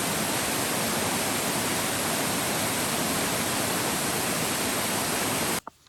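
Steady rush of a river's flowing water, cutting off suddenly near the end.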